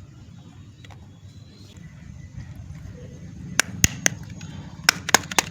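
Soap packaging being handled: a run of sharp clicks and taps, a few just past halfway and a quicker cluster near the end, over a low steady background rumble.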